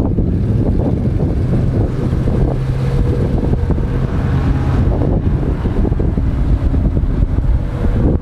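Land Rover Discovery 1's 3.9-litre V8 petrol engine running under load as the truck works through a muddy ditch, with wind buffeting the microphone.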